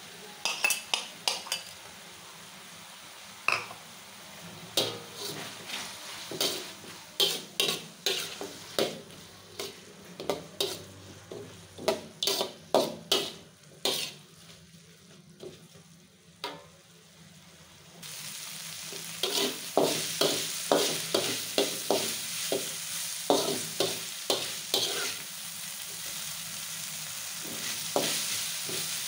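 A spatula scrapes and taps against a wok while onion, chilli and turmeric-coated beef testicles are stir-fried, with oil sizzling under the strokes. The strokes thin out for a few seconds in the middle, then the sizzle comes back louder for the last third.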